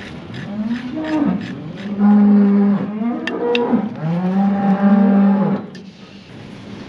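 Cow mooing: several long, low moos in a row that break off just before six seconds, with two short sharp clicks in the middle.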